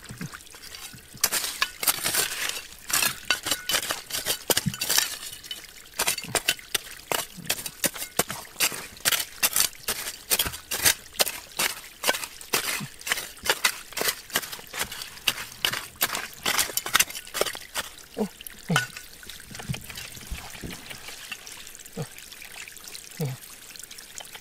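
Water pouring and trickling, with a dense run of sharp clicks and rattles that thin out in the last third.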